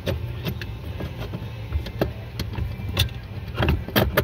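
Irregular metal clicks and light knocks as a long through bolt is worked the rest of the way out of a car's steering column mount by hand, the sharpest few near the end, over a steady low hum.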